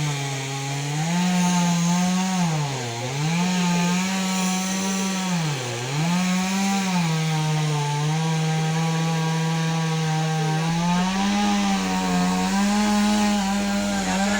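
Chainsaw running at high speed while cutting a tree. Its pitch drops sharply twice, about three and six seconds in, then climbs back.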